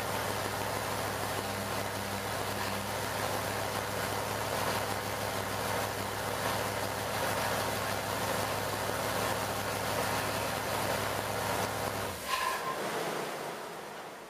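Ford Motorsport 460 cubic-inch big-block V8 running steadily on an engine dyno, shut off about twelve seconds in, with a short click just after it stops.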